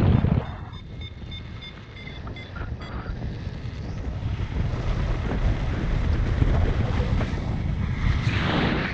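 Airflow buffeting the microphone of a camera on a paraglider in flight: loud at first, dropping off sharply just after the start, then building back up steadily with a strong gust near the end. During the quieter stretch a variometer sounds a quick series of short high beeps, its signal for lift.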